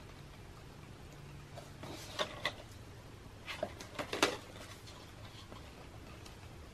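Photobook pages turned by hand: short paper rustles and flaps, a couple about two seconds in and a louder cluster around four seconds in.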